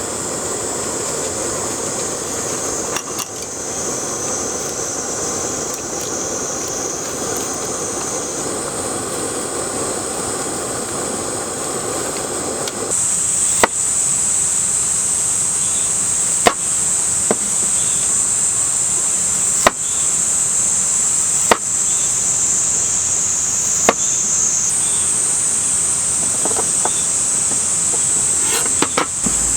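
A steady chorus of cicadas buzzing loudly in the forest. In the first half a lower rushing noise sits under it and cuts off suddenly. After that come single sharp knocks every two to three seconds.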